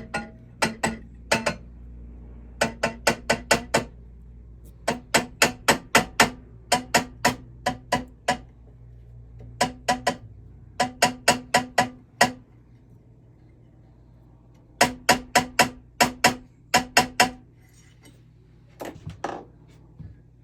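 Hammer tapping a braided-wire ring frame on a steel ring mandrel to round it into shape: quick runs of about five sharp metallic taps a second, each with a short ring, broken by brief pauses, with a few fainter taps near the end.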